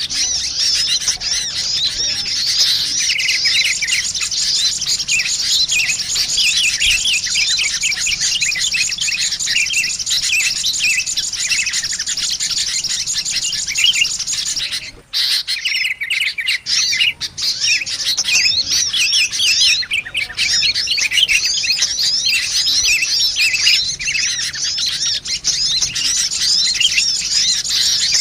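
Sunbirds and sooty-headed bulbuls calling together in a dense, busy stream of rapid high chirps, a bird-trapping lure recording. There is a brief break about fifteen seconds in.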